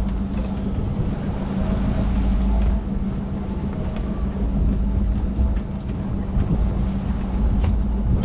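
Fishing boat's engine running steadily, a low even drone, with wind on the microphone.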